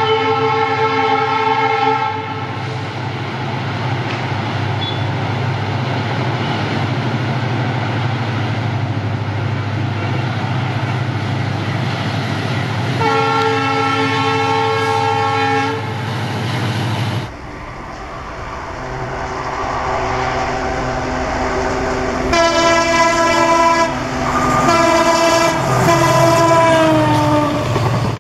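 WDG-4D-class EMD diesel locomotive approaching with a steady low engine drone, sounding its multi-tone horn at the start and again about 13 seconds in. After a sudden change about 17 seconds in, a passing train sounds its horn twice over wheel and rail noise, and the second blast falls in pitch as the train goes by.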